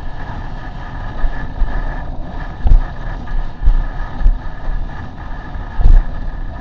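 Wind buffeting an action camera's microphone on a windsurfer sailing fast over choppy water, with a steady rush of water and air, a thin steady whistle underneath, and several sharp thumps, the loudest near the end, as the board slaps the chop.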